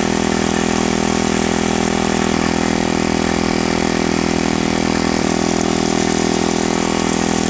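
Small gasoline engine of a walk-behind power trowel running at a steady speed.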